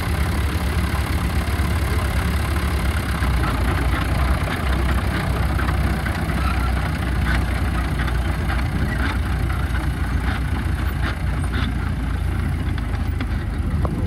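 Vintage International crawler tractor's engine running steadily as it moves off and turns while towing a trailer plough, with scattered light rattles.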